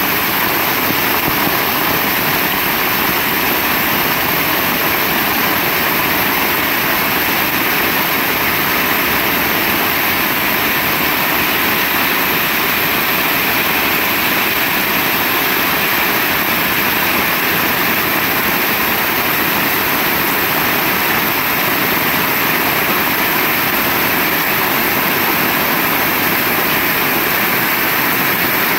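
Heavy rain falling steadily, a dense, even wash of drops with no let-up.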